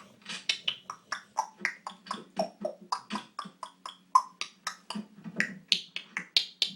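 Congo African grey parrot making a rapid run of short clicks and pops, about four or five a second, each at a different pitch.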